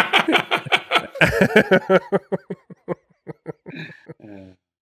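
Several men laughing together, the laughter thinning out into a few last chuckles.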